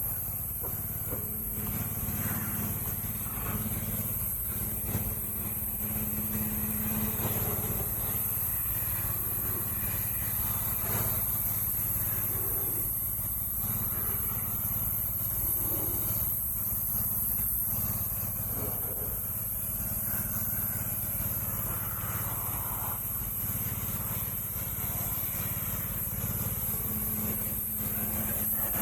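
Pressure washer running steadily: a continuous motor hum under a steady high hiss from the water jet.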